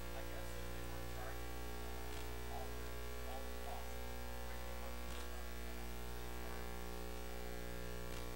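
Steady electrical mains hum with a stack of overtones, low in level and unchanging, with a few faint brief sounds in the background.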